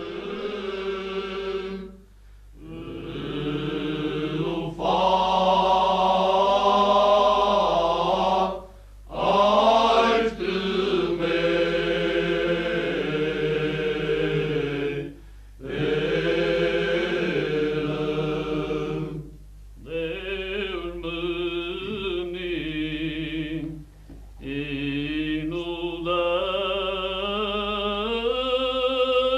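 Unaccompanied male choir singing cante alentejano in long, slow held phrases, with short breaks for breath between phrases.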